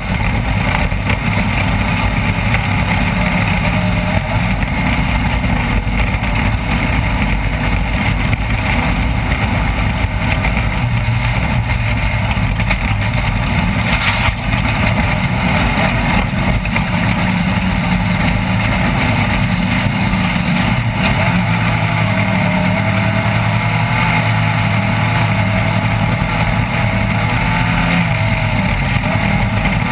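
Off-road race vehicle's engine running hard and steadily, its pitch shifting now and then, under a constant loud rush of noise.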